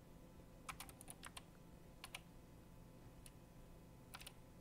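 Faint keystrokes on a computer keyboard: a handful of separate key presses, some in quick pairs, with pauses between them as an email address is typed.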